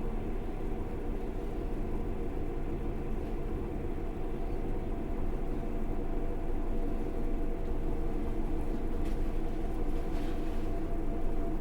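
Passenger train in motion heard from inside the carriage: a steady rumble of wheels on rails with a low hum, and a couple of faint knocks near the end.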